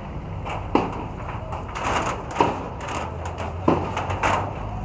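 Demolition of a corrugated-iron shack with hand tools: four sharp knocks and bangs, spaced about a second apart, as rusty corrugated sheets are struck and pried loose. A low steady hum runs underneath.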